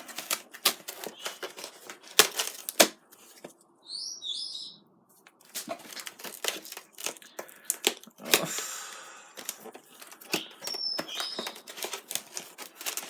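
Packaging being handled: tissue paper rustling and crinkling, with scattered clicks and taps as items are unwrapped and set down. A longer rustle comes about eight seconds in.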